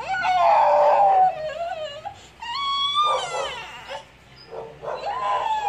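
A dog whining in three long, high, wavering whines, the last one falling in pitch, as it pushes in for attention.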